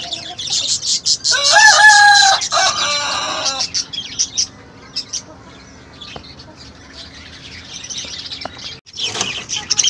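An Indian country (nattu) rooster crows once, loudly, starting about a second in and lasting about two seconds, with scattered high-pitched chirps before and after.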